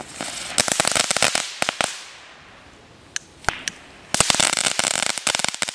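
Weco Blitzknatterbälle, crackling ground fireworks, going off: a fast crackle of many sharp pops that dies away about two seconds in, a few lone pops, then a second dense burst of crackling about four seconds in.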